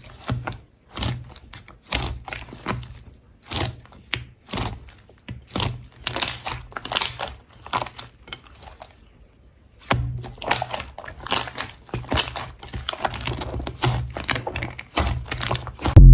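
Slime being pressed, poked and stretched by hand, giving rapid, irregular clicks and pops, with a short pause about two-thirds of the way through.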